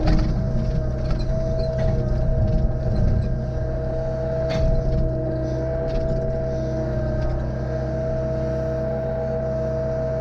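Excavator's diesel engine running steadily, with a constant high whine from the hydraulics and a few knocks, one right at the start and one about four and a half seconds in.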